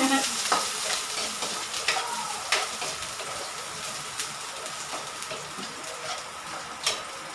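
Chopped garlic sizzling in a hot metal wok over a gas burner while a metal spatula stirs it, scraping the pan with a few sharp clicks of metal on metal.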